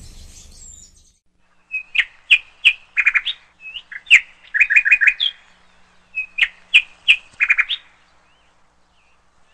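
Small songbird chirping: three runs of quick, high tweets and chips, each run about a second and a half long, with short gaps between them.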